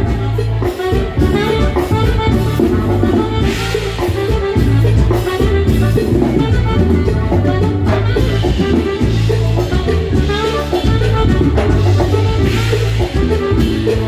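Live norteño band playing a dance number: a melody line over a steady bass and drum beat.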